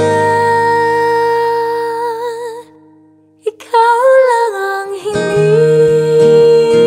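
Ballad music: a female singer holds a long note with vibrato over acoustic guitar, the music drops out for about a second a little before halfway, then the voice returns with the guitar.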